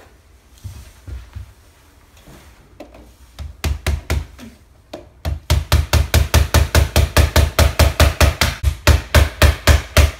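Hammer driving nails into a wooden window frame: a few blows about three and a half seconds in, then from about five seconds in a fast, steady run of blows, about four or five a second.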